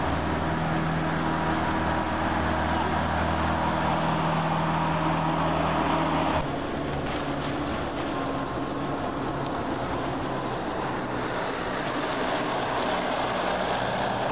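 Engine of an eight-wheeled armoured personnel carrier running steadily. About six seconds in it changes abruptly to a noisier rumble as the carrier drives along a dirt track.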